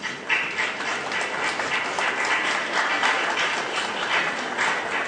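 Audience applauding: a dense patter of many hands clapping that starts suddenly and thins out near the end.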